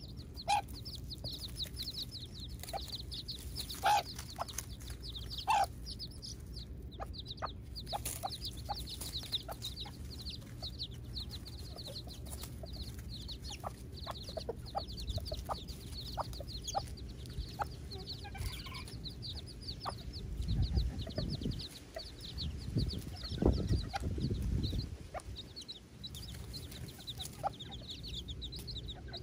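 Baby chicks peeping rapidly and constantly, with a few short clucks from the hens in the first few seconds. A low rumble comes twice, about two-thirds of the way through.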